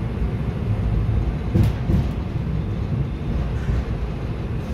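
Interior of an RA2 diesel railcar on the move: a steady low engine drone and rumble of the wheels on the track. Two sharp knocks come about a second and a half in.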